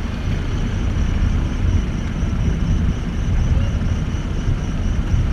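Wind buffeting the camera microphone: a loud, fluttering low rumble that rises and falls without a break.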